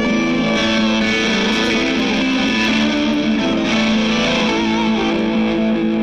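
Background music: an electric guitar played through effects, with held notes that bend and waver.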